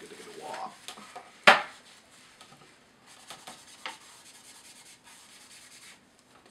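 A film clapperboard handled on a tabletop: one loud, sharp clack about a second and a half in, then quiet scratchy rubbing strokes as its slate face is wiped or written on.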